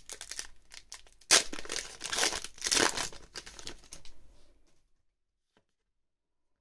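Foil Pokémon booster pack wrapper being torn open and crinkled, with a sudden loud rip about a second in and more tearing and rustling after it. The sound stops suddenly after about four and a half seconds.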